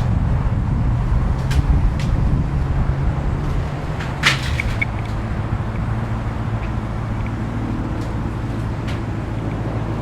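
Supercharged 6.2-litre V8 of a Dodge Challenger SRT Hellcat running: an uneven low rumble for the first few seconds, settling about four seconds in to a steady idle drone. A brief higher-pitched sound stands out as it settles.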